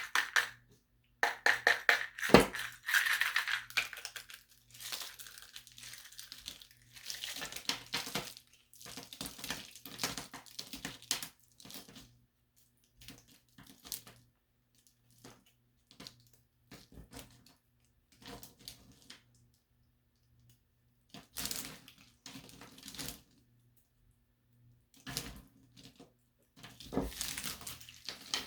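Small plaster tiles being handled and crumbled, making crunching, crackling noise in irregular short bursts with pauses between, and a sharp click about two and a half seconds in.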